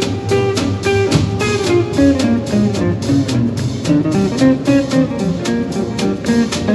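Small swing jazz band playing at an up-tempo swing: an archtop electric guitar plays a single-note line over double bass and drums, with steady cymbal strokes. The church's long natural reverb fills out the sound.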